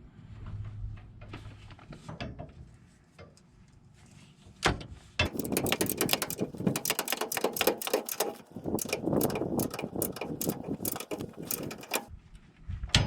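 Socket ratchet on a torque wrench clicking rapidly as tie-down bracket bolts are run up toward 40 ft-lb, in a long run of fast ratcheting strokes after a quieter start, with a single sharp click near the end.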